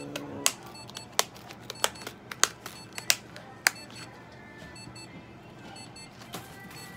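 Sharp plastic clicks, about seven in the first four seconds, as a clear plastic Elizabethan collar is snapped shut and adjusted around a cat's neck.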